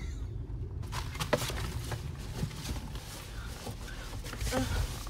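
Steady low rumble of a car heard from inside the cabin, with scattered clicks and rustles of things being handled.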